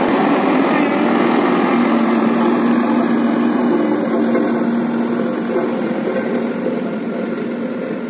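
Diesel engine of a Case single-drum road roller running steadily as the roller drives past and away over the gravel road base, slowly fading.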